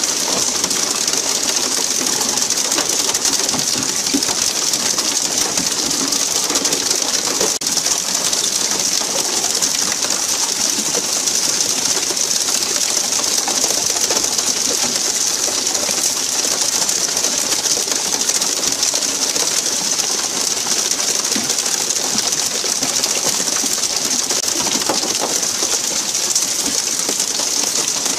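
A steady high-pitched hiss with birds calling over it.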